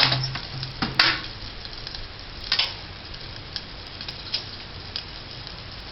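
A metal spoon tapping and clinking on a pan as turmeric powder is added to milk: a few sharp taps in the first three seconds, then fainter ticks, over a steady background hiss.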